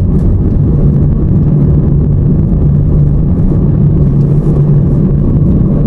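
Steady engine and road rumble of a moving car, heard from inside the cabin, with a constant low hum.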